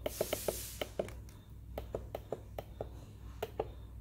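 Plastic snooze/dimmer button on a clock radio clicking under repeated presses, a dozen or more short clicks at an uneven pace, as it steps through the display's brightness levels.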